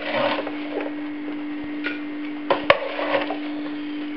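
Food being dished out onto plates: a serving spoon scraping and clinking against crockery and the fryer pan, with a few sharp knocks, the sharpest about two and a half seconds in, over a steady low hum.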